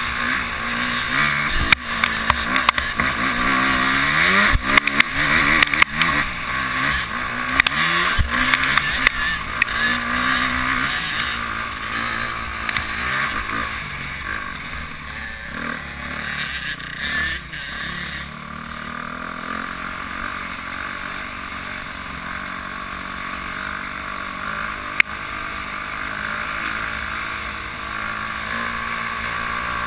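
Dirt bike engine heard from the bike itself, revving up and down over a rough trail, with several knocks in the first half. It then settles to steadier, lower running, with one sharp click late on.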